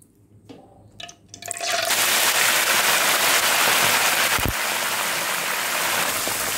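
Hot cooking oil in a wok breaks into loud, steady sizzling about two seconds in as two whole fish go in, after a few small clicks. A single dull knock about four and a half seconds in.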